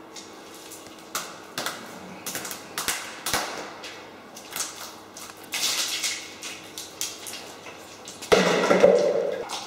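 Thick wet black paint on skin making scattered sticky clicks and squelches, with a louder burst lasting about a second near the end.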